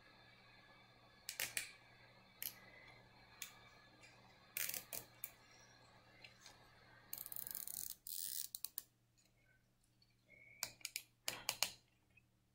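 Faint handling clicks and taps of hands working small laser-cut wooden kit parts and wires, with a short ratcheting zip of a plastic cable tie being pulled through and tightened about seven seconds in.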